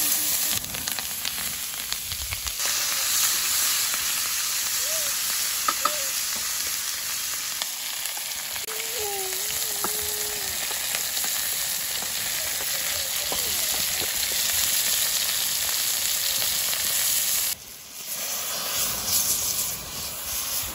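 Sliced onions sizzling steadily in hot oil in a wide pan, stirred now and then with a spatula. The sizzle dips briefly a few seconds before the end.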